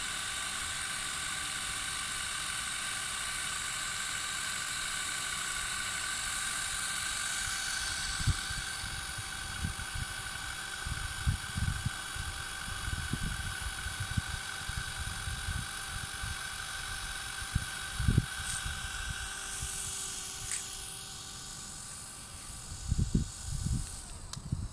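A small motor's steady whine with several pitches, fading away near the end. From about a third of the way in, irregular low gusty rumbles, typical of wind buffeting the microphone.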